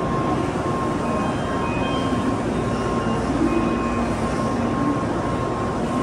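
A Tokaido Shinkansen train stands at the platform with its on-board equipment running: a steady drone with a faint, constant high whine.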